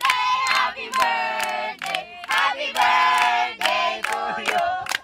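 A group of young people singing a clapping-game chant together, with hand claps about twice a second.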